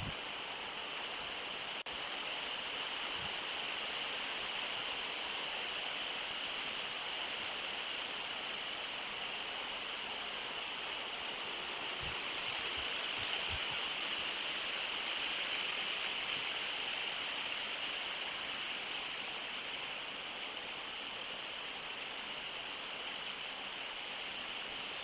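Steady outdoor ambience: an even hiss with a constant high-pitched band running through it, and a few faint, high, brief chirps.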